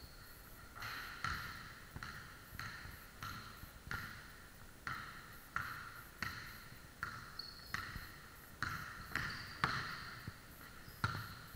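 A basketball being dribbled on a hardwood gym floor, bouncing about every two thirds of a second, each bounce echoing in the large hall.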